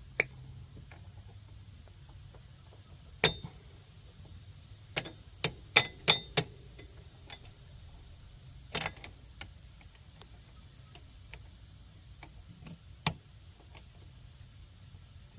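Metal hand tools clinking against metal parts: about a dozen sharp, irregular clinks with a short ring, several of them close together about five to six and a half seconds in.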